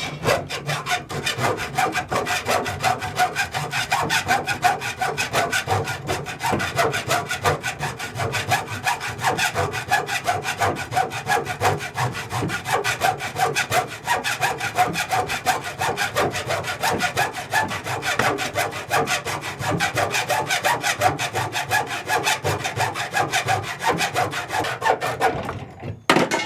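Wood being sawn in a long, steady run of rapid strokes that stops near the end.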